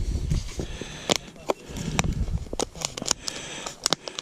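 Sharp clicks and crackles of a small plastic bait tub filled with sawdust being handled and its lid worked open by hand, scattered irregularly.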